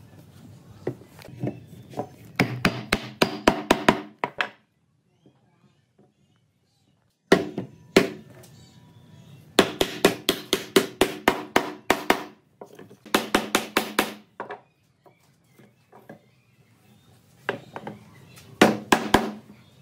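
Hammer blows on wood, coming in several quick runs of about four or five strikes a second, each strike ringing briefly.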